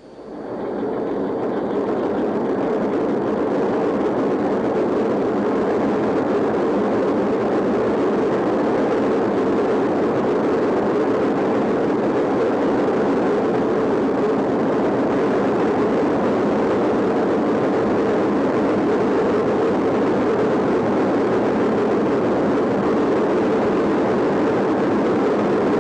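Steady engine-room din of a large low-speed two-stroke marine diesel, a Burmeister & Wain K90GF, running normally after its piston overhaul; it fades in over about a second and then holds level.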